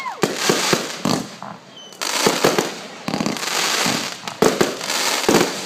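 Fireworks launching and bursting close by: a run of sharp bangs over dense crackling. It thins out briefly about a second and a half in, then the crackling picks up again with loud reports near the end.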